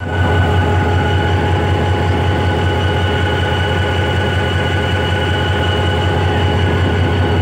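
Diesel-electric locomotive idling at a standstill, heard close beside its engine compartment: a steady, loud low hum with a few steady whining tones above it.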